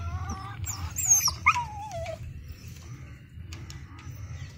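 A dog whining: a few drawn-out high whimpers in the first two seconds, the last one sliding down in pitch, followed by a few faint clicks.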